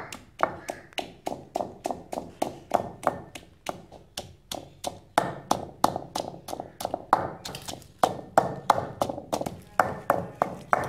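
Wooden pestle pounding green chillies and garlic in a heavy stone mortar, a steady run of knocks at about three to four strikes a second as the ingredients are crushed to a paste.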